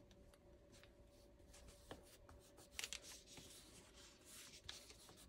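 Near silence, with faint rustles and a few light taps of paper as a sticker strip is pressed and smoothed onto a planner page.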